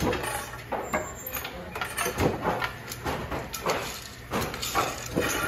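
Irregular short knocks and clatters, a few a second, with faint voices in the background.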